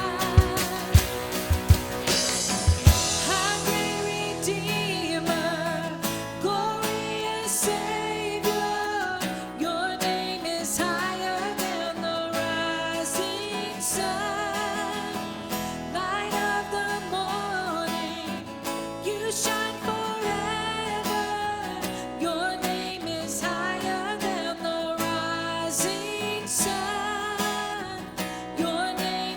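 Worship band playing: acoustic guitar chords and drum kit under a sung melody, with heavy drum hits in the first few seconds.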